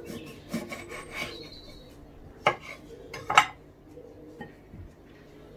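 Kitchen knife cutting a lime in half on a wooden cutting board, with light scraping strokes. Then come two sharp knocks about a second apart, the second louder, as the knife and lime halves are set down.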